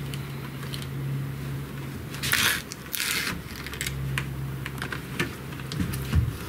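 A window frame knocking and scraping against the rough opening and its shims as it is set in for a test fit: scattered light clicks and bumps, with two short scrapes about two and three seconds in. A low steady hum comes and goes underneath.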